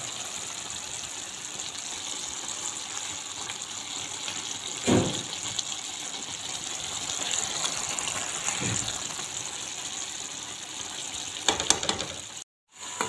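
Cabbage-and-pea curry simmering in a metal pan, a steady bubbling hiss as the cabbage cooks down in the water it has released. Two dull knocks, about five seconds in and again near nine seconds, and a few clicks near the end.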